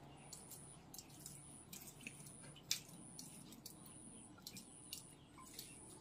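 Near silence: faint scattered ticks and clicks, one a little louder about three seconds in, with a faint high chirp repeating about once a second.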